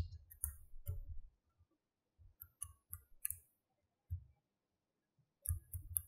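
Small magnetic balls clicking as they are snapped onto a model built of magnetic balls: scattered sharp clicks, a quick run of them about halfway through and more near the end, with soft low bumps of hand handling.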